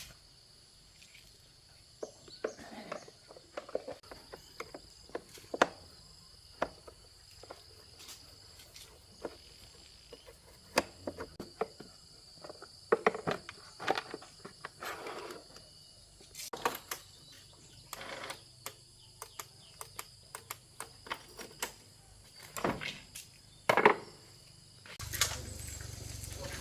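Irregular clicks and knocks of hand tools on motorbike parts during a repair, over a steady high-pitched whine. A low steady hum begins near the end.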